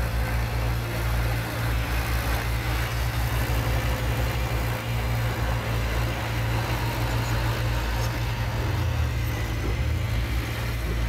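Diesel engines of a small crawler bulldozer pushing dirt and a Cat 320B excavator running, a steady low rumble.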